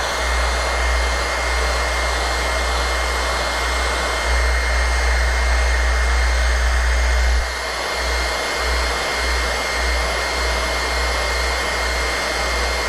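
Electric heat gun blowing steadily with a high fan whine, with a low rumble underneath. It is warming vinyl wrap so that the vinyl stretches around a bend.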